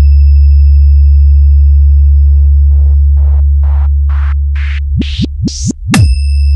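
Electronic DJ sound-check track: a deep, steady bass test tone under fading high pings, then a build-up of noise pulses that climb in pitch and speed up, with falling bass sweeps leading into a sharp hit about six seconds in.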